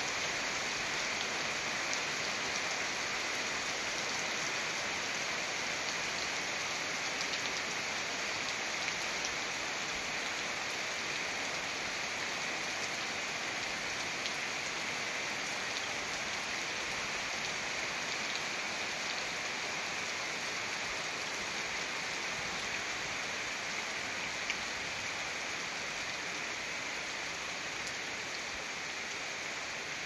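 Steady rain falling on grass, trees and paving: an even hiss with scattered sharper drop taps.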